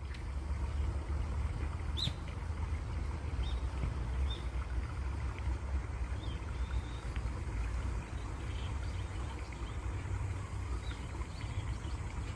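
Steady rush of flowing water, with faint short bird chirps every second or two.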